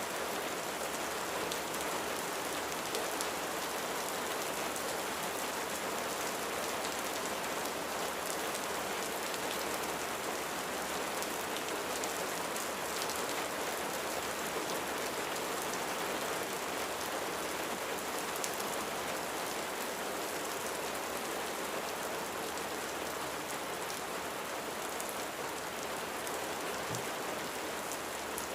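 Steady rain falling on a surface with fine scattered drop ticks: a rain-sound ambience, even and unchanging throughout.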